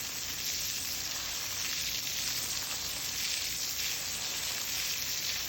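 Water spraying steadily, rinsing dirt off a quartz crystal cluster: an even hiss.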